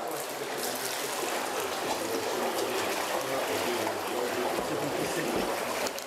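Water sloshing and splashing in a shallow plastic tub as a large koi is handled in it.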